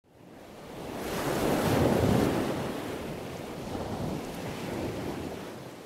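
A surf-like rush of noise, like a wave washing in, swelling to its loudest about two seconds in. It eases, swells again more softly around four to five seconds, then fades away.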